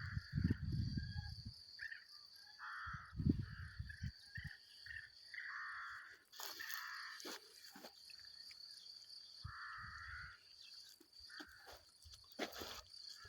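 A bird of prey whistling: about a dozen short, hoarse calls at irregular intervals. Gusts of wind rumble on the microphone near the start.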